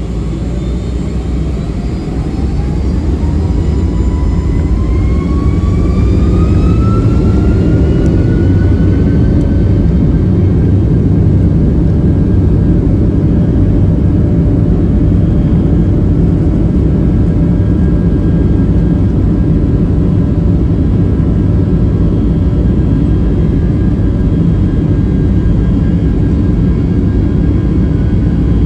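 Boeing 757-300 jet engines heard from inside the cabin over the wing, spooling up to takeoff thrust: a whine climbs in pitch over the first ten seconds as the rumble grows louder. The engines then run loud and steady through the takeoff roll.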